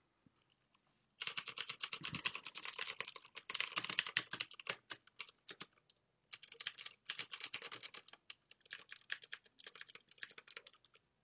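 Typing on an XPG Summoner mechanical keyboard with Cherry MX Blue switches: rapid clicky keystrokes in several bursts, starting about a second in, with short pauses between bursts.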